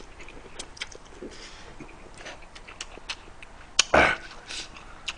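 Close-miked chewing of a mouthful of instant cup-ramen noodles: soft wet mouth clicks and smacks, with one brief louder mouth noise about four seconds in.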